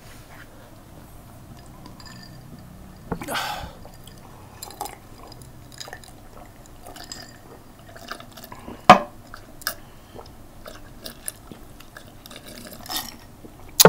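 Sips and swallows from glasses of an iced drink, with scattered small clicks and mouth sounds and one sharp click about nine seconds in.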